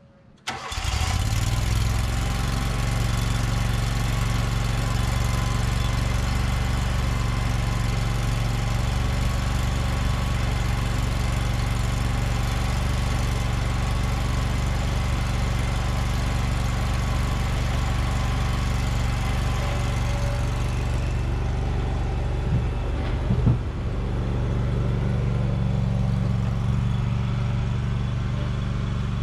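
Riding lawn mower's engine starting up about half a second in and then running steadily, with a short knock and shift in tone about three-quarters of the way through as the mower gets under way.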